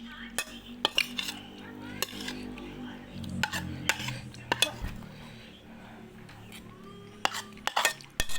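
Cutlery clinking against a bowl while eating: sharp, separate clinks at irregular intervals.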